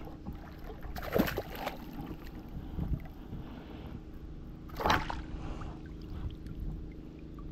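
Water splashing twice, about a second in and again near five seconds, as a hooked black bass thrashes at the surface beside the boat and is grabbed by hand. A steady low hum runs underneath.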